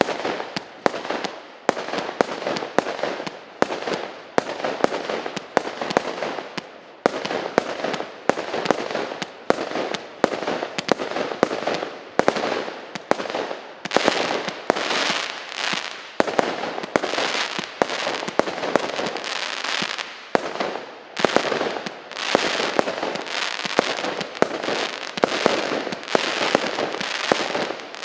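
A 0.8-inch, 186-shot firework cake firing a continuous rapid volley, about two to three shots a second. Each shot is a sharp launch pop followed by a hissing whistle tail.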